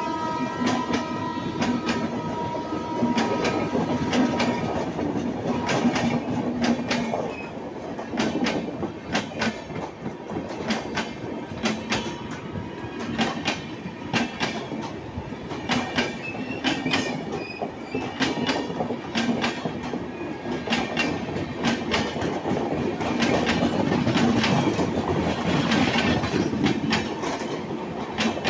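Indian Railways express train coaches passing close by: a continuous rumble of wheels on rail, broken by many sharp clicks and clatters as the bogies run over rail joints. A steady high tone fades out in the first few seconds.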